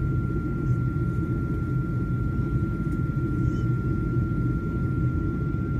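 Black Hawk helicopter in flight: a steady low rumble, with a thin steady whine above it.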